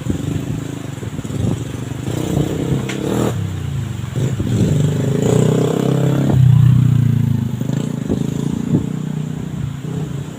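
A motor vehicle's engine passing by, growing louder to a peak about two-thirds of the way through and then fading away.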